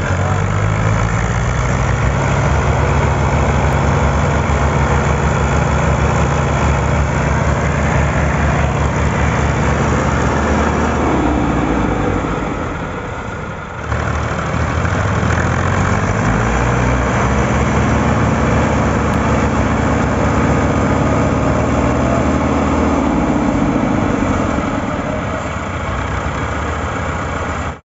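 Tractor diesel engine running hard with a steady firing beat, its pitch rising and falling as the revs change. It sags briefly about 12 seconds in, then picks straight back up, climbs and holds before easing down near the end.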